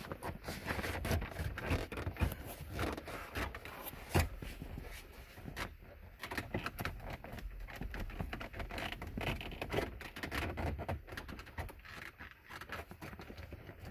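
Hands working plastic steering-column trim and wiring into place: irregular scraping and rustling with many small clicks, and a sharper knock about four seconds in.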